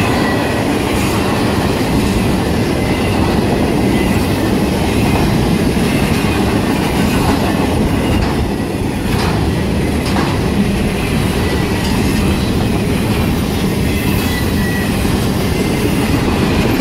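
Intermodal freight train cars carrying semi-trailers on flatcars rolling past close by: a steady loud rumble and clatter of steel wheels on rail. A faint high wheel squeal comes and goes.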